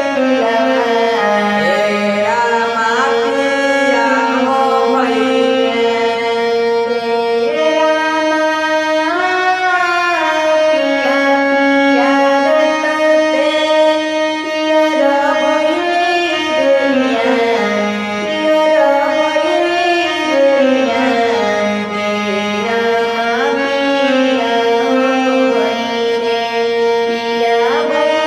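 A man singing a Bhojpuri folk song to his own harmonium accompaniment. The harmonium holds sustained reedy notes under a voice that bends and glides through the melody.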